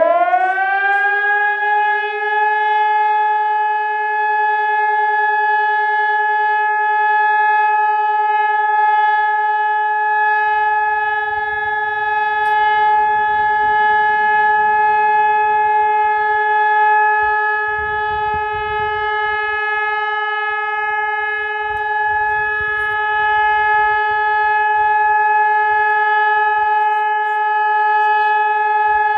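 Hörmann ECI-DT 1200 electronic warning siren rising quickly in pitch at the start, then holding one steady, unbroken tone. A continuous tone like this is the signal used in Germany for the all-clear (Entwarnung).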